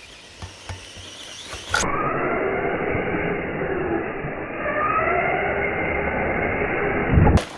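Redcat Volcano 4S RC truck's brushless motor whining, rising and falling in pitch as the throttle changes, with a dull, muffled sound. It ends in a low thud near the end. Before it, faint light ticks come about twice a second.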